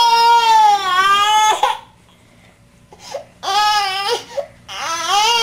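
An infant crying: one long wail, a pause of over a second, then three shorter wails.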